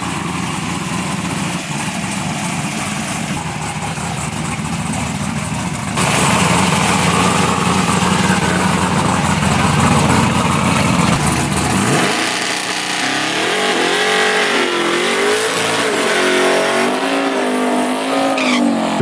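Drag race car engines running loud, then revving up and down repeatedly over the last several seconds.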